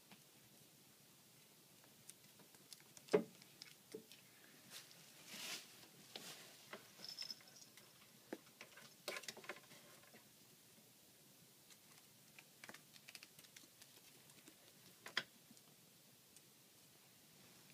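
Faint scattered pattering, scrapes and rustles of a ferret scurrying about and dragging toys, with a sharper knock about three seconds in and another late on.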